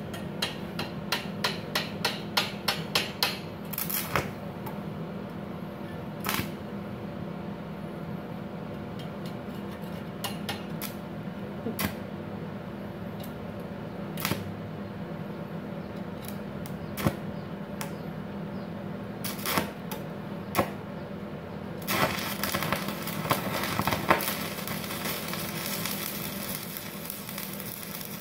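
A series of sharp clicks and taps, fast at first and then scattered. About 22 s in, a stick-welding arc (LB electrode at 96 A on a DC inverter welder with its voltage reducing device switched on) catches and crackles and sizzles steadily. With the VRD on, the arc is harder to start.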